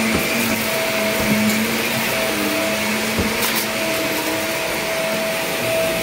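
Upright vacuum cleaner running steadily on carpet, its motor note wavering a little as it is pushed back and forth, with a couple of light knocks.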